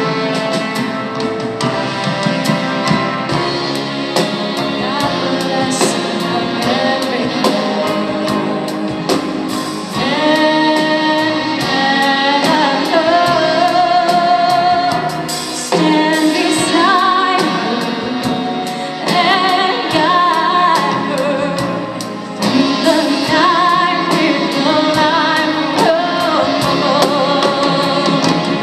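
A woman singing live into a microphone with a band backing her, over a steady beat.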